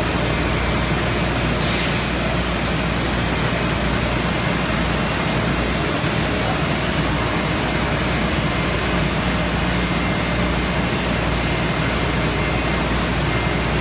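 Steady, loud din of a citrus packing line: machinery running, a low hum under an even rushing noise, with a short hiss about two seconds in.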